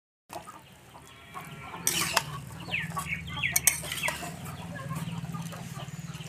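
Chickens clucking nearby, with a few sharp scrapes and knocks of a spatula against an aluminium kadai as fried mahua fruit pieces are stirred.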